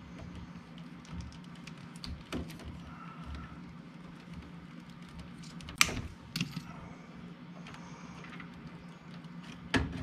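A few sharp clicks and knocks from wires and tools being handled during relay wiring work: a small one about two seconds in, the loudest about six seconds in followed by a softer one, and another near the end, over a steady low hum.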